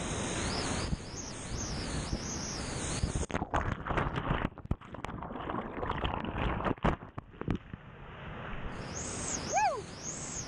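Whitewater of a flood-stage river rapid rushing and crashing around a kayaker's helmet camera. In the middle the camera is swamped and goes under, so the rush turns muffled and breaks up into knocks and dropouts. Near the end a short falling cry sounds over the water.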